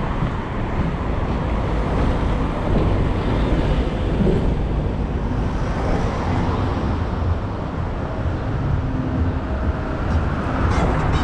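Road traffic passing close by: car and van engines and tyre noise over a steady low rumble.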